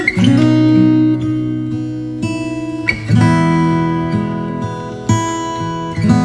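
Background music: acoustic guitar strumming chords, with a new chord struck every second or two.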